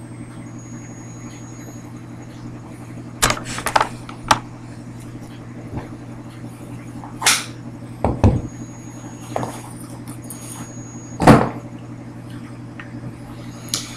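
Scattered clicks and knocks of things being handled on a table, about seven in all, over a steady low hum.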